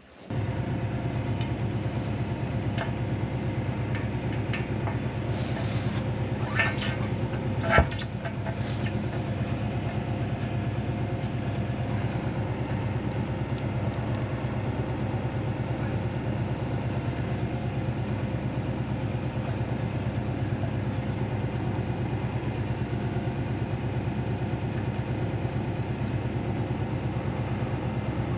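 An engine running steadily with a low, even drone, starting suddenly and holding level, with a few light metallic clinks about six to eight seconds in.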